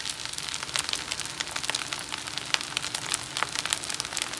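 Egg fried rice sizzling and crackling in a hot wok over high heat, a dense patter of small pops.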